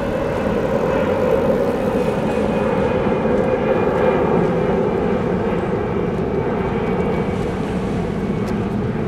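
Airbus A320 airliner climbing out after takeoff, its jet engines giving a steady low roar that swells to about four seconds in and then slowly fades as the plane draws away.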